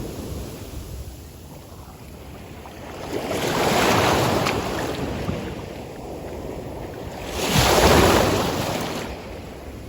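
Atlantic surf breaking on a beach: two waves rush in and wash back, the louder one about eight seconds in, with a quieter hiss of water between them.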